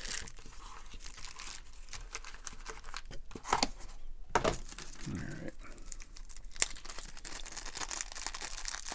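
Plastic packaging crinkling and rustling while small hardware parts are handled and put back in their box, with scattered light clicks and a few louder taps.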